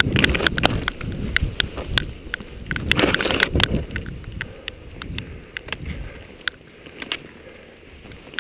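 Skis sliding over snow, with a low rushing and many scattered sharp clicks and knocks, picked up through a GoPro. There is a louder scraping burst a few seconds in, then the rushing dies down over the second half as the skier slows.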